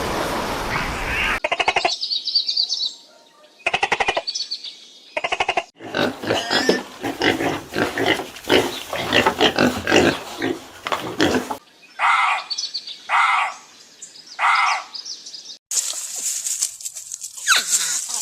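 A series of different animal calls, each cut in separately one after another. There is a rapid clicking train, then a dense run of calls lasting about six seconds, then three evenly spaced calls, and falling cries near the end.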